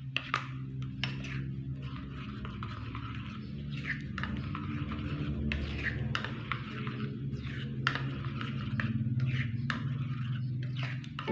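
A metal spoon stirring thick wheat-flour batter in a ceramic bowl, with irregular scrapes and light clinks against the bowl, over a low steady hum.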